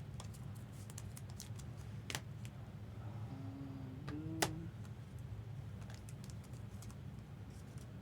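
Trading cards being handled and sorted: scattered light clicks and taps of card stock and plastic, with one sharper click about four and a half seconds in, over a steady low hum.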